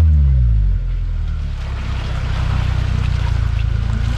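Off-road 4x4 engine easing off from a rev, its pitch falling over the first second, then running steady at low revs with a rapid, even pulsing rumble.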